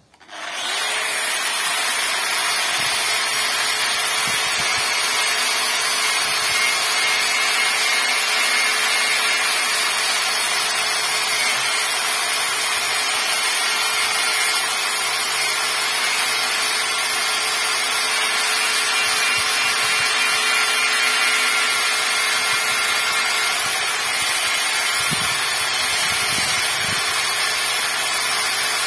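Angle grinder spinning up in the first second, then running steadily with a whine as its abrasive disc grinds loose paint, rust and grime off the tractor's steel frame rail down to bare metal.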